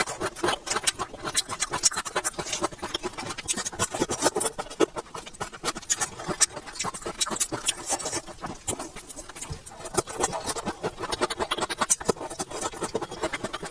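Close-miked chewing of crispy food: a dense, continuous run of small crackling crunches.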